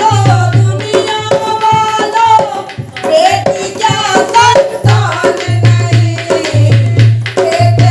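Two women singing a Hindi devotional bhajan in folk style over a dholak played by hand, its deep bass strokes falling in a steady repeating rhythm under quick sharp slaps.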